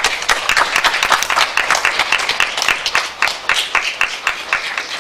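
Applause from a small audience: many hands clapping in a dense, irregular patter that starts suddenly.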